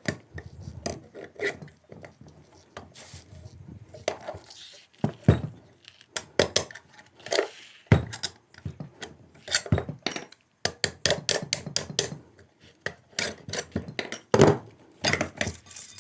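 Long metal screws being drawn out of an old cooler motor's housing and set down: irregular sharp metallic clicks and clinks, some coming in quick runs.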